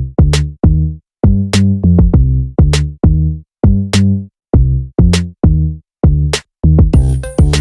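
Background electronic music: a drum-machine beat of deep, punchy bass hits separated by short silences, with a cymbal-like hiss coming in near the end.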